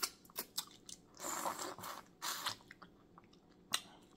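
Close-miked eating of boiled crawfish: wet chewing and sucking with lip smacks, broken by sharp clicks of shells being cracked and peeled, and one louder crack near the end.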